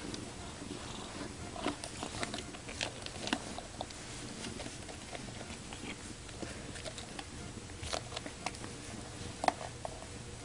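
Domestic cat purring, with scattered short clicks and rustles as the cat grapples with a hand on a blanket.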